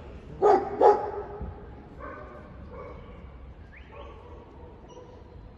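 Pack of stray dogs barking: two loud barks about half a second apart near the start, then fainter calls from the pack.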